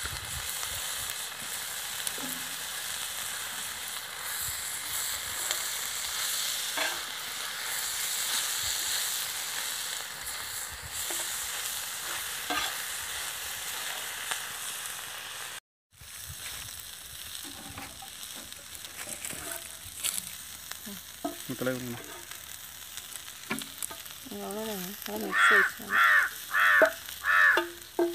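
Chicken liver frying on a flat iron pan over a wood fire, sizzling steadily while a metal spoon stirs and scrapes through it. After a brief cut about halfway, the sizzle is fainter with small scraping clicks. Near the end come four loud calls in quick succession, the loudest sound.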